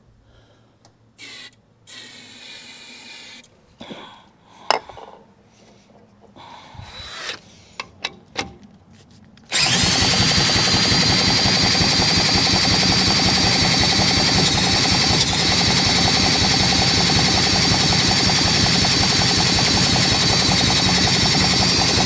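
A cordless drill cranking over an Atco Standard mower's Villiers two-stroke engine by its flywheel nut: after some quiet handling knocks, it runs steadily for about twelve seconds, with the engine's quick rhythmic turning under the drill's whine. The engine does not catch.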